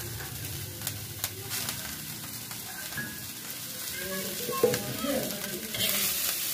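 Noodles and shredded cabbage sizzling in a hot wok, stir-fried for chow mein, with sharp metal clinks of the utensil against the wok; the sizzle grows louder near the end.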